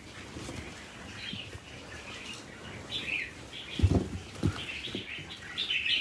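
Caged red-whiskered bulbuls chirping in scattered short calls, with two dull thumps about two-thirds of the way through.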